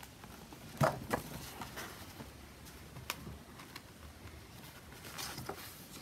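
Hardcover picture book being lowered and handled, with a page turning: a few soft taps and paper rustles, the loudest just under a second in.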